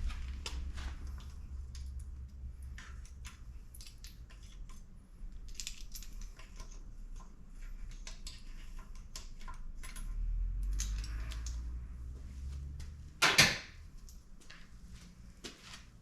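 Metal hand tools and sockets clinking and rattling in irregular clicks while spark plugs are taken out of a Nissan SR20DET engine. One short loud burst about thirteen seconds in, over a low steady hum.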